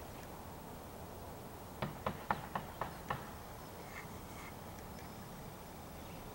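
Crow's beak pecking against a bird-bath bowl: six quick, sharp taps over about a second and a half, starting about two seconds in.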